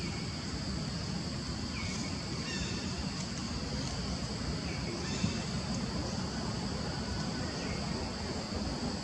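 A steady, high-pitched drone of insects, with a few short chirps now and then and a steady low rumble underneath. There is a single brief knock about five seconds in.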